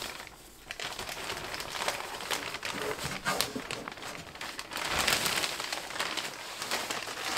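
Clear plastic bag crinkling and rustling as it is handled and pulled off the antenna tuner, loudest about five seconds in.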